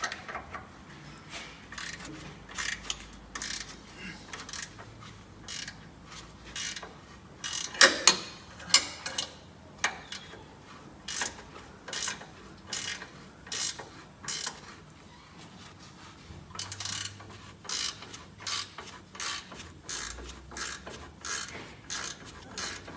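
Ratchet wrench clicking in uneven runs, about two or three clicks a second, as it is swung back and forth to loosen a bolt, with a few louder metallic clicks about eight seconds in.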